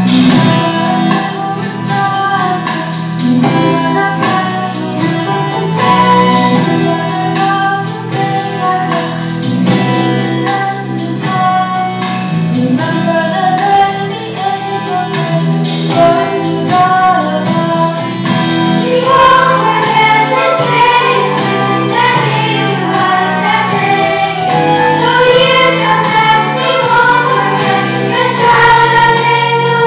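Children's choir singing a song over instrumental accompaniment.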